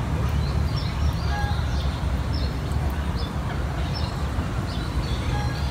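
Small birds chirping with short, high calls that repeat about once or twice a second, over a steady low rumble.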